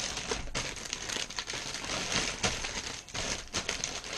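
Plastic bags of model-kit parts crinkling and rustling as they are handled and shifted in a cardboard box, with small irregular clicks throughout.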